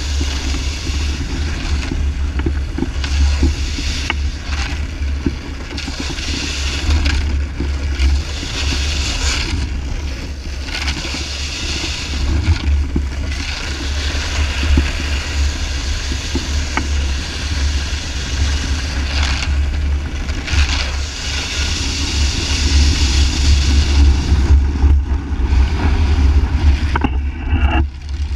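Wind buffeting the camera's microphone in a heavy, fluttering rumble, over the hiss and scrape of a snowboard sliding across ice. The sound swells and fades as the ride goes on and is loudest a few seconds before the end.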